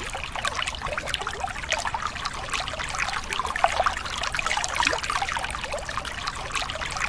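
Shallow stream water rushing over rock close to the microphone: a steady bubbling and gurgling made of many small splashes.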